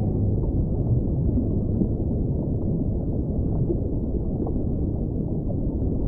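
Steady low underwater ocean rumble with no whale call in it, crossed by a few faint clicks.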